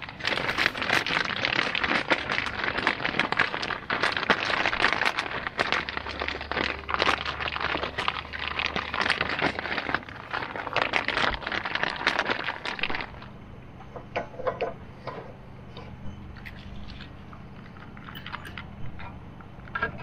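Clear zip-top plastic bag crinkling and rustling as it is handled, a dense run of crackles and clicks for about thirteen seconds. It then turns quieter, with only a few scattered crinkles.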